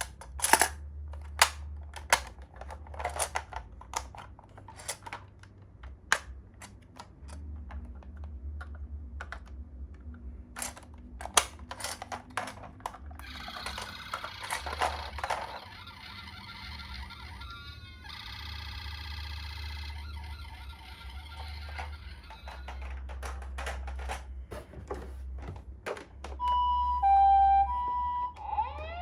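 Hard plastic toy ambulances clicking and clattering as they are handled and pushed about, with a brief whir and a buzzy tone in the middle. Near the end a toy ambulance's electronic siren starts up with a two-tone hi-lo call, high then low and repeating.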